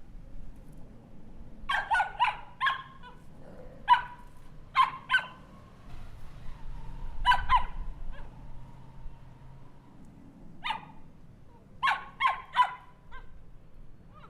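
Small dog barking in short, sharp, high-pitched yaps, coming singly or in quick runs of two to four with pauses between.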